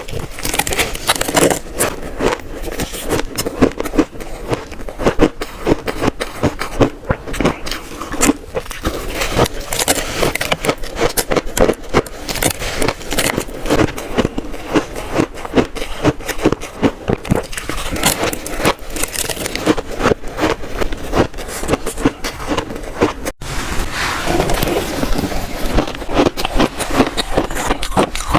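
Shaved ice being bitten and crunched close to the microphone: a steady stream of dense, crackling crunches.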